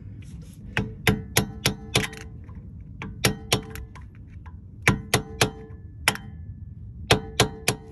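Hammer tapping on a screwdriver, light metal-on-metal taps with a short ring, in bursts of two to five about three a second, driving a part down into the groove on the rear axle at a new hub assembly.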